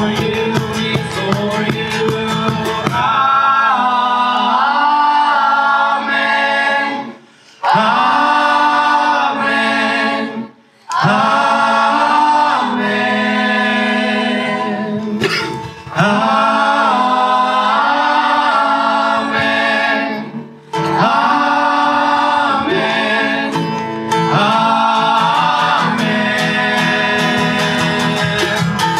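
Live worship song: male and female voices singing together over strummed acoustic guitar and a cajón, with brief breaks between sung phrases about three times.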